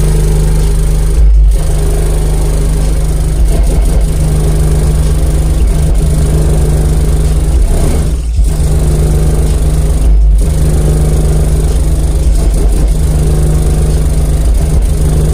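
12-inch BlackBrick BB3v2 subwoofer in a ported box tuned to about 32 Hz, playing bass-heavy music at high power: very loud, deep low bass with a buzzing haze over it, broken by a few brief dips.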